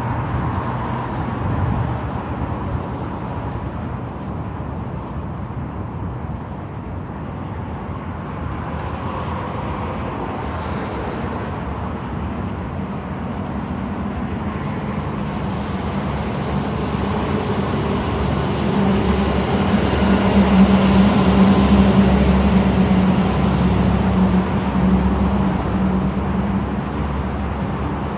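Steady city traffic noise. A motor vehicle's engine hum swells and fades about two-thirds of the way through.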